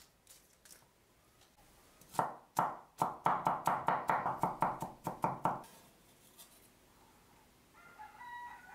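A cleaver chops garlic cloves on a wooden cutting board. A few separate knocks come first, then, about three seconds in, a quick even run of about six chops a second for some two and a half seconds.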